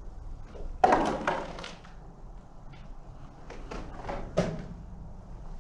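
Footsteps and scuffing, with a loud knock or scrape about a second in and another sharp one about four and a half seconds in.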